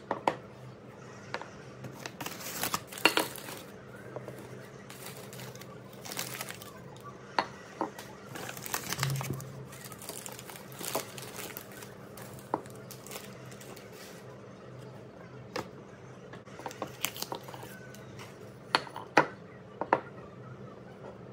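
Tissue paper crinkling as items are unwrapped, with scattered sharp clicks and taps as tile coasters and candles are set down on a hard tabletop.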